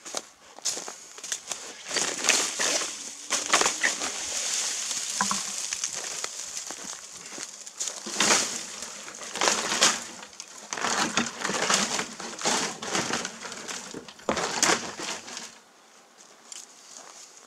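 Dry leaves and twiggy garden prunings crunching and rustling in repeated bursts as they are tipped into a wooden compost box with hand leaf-grab scoops and packed in, with a lull near the end.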